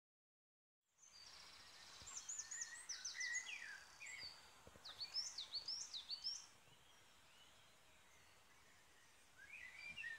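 Songbirds singing: quick high trills and varied whistled phrases with fast downward-sweeping notes. The sound comes in about a second in, the song lulls for a few seconds toward the end, then starts up again.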